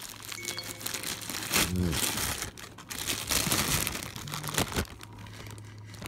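Thin clear plastic bag of wax melts crinkling as hands open and handle it.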